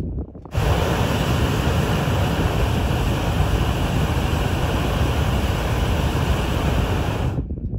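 Hot-air balloon propane burner firing: a loud, steady rushing noise that starts about half a second in and cuts off suddenly near the end.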